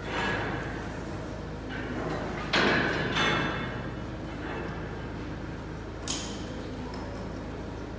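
Metal chain and hook on a lifeboat slipway clanking and scraping as the bow securing gear is handled: four sharp clanks, two close together in the middle, over a steady low hum.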